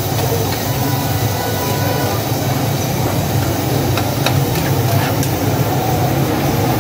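Restaurant gas burners running at high flame under steel karahis, a steady low rumble, with a few light clinks of metal tongs against a karahi about four and five seconds in.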